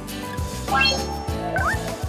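Background music with a steady beat, with a quick upward-gliding tone a little under a second in and a shorter rising one near the end.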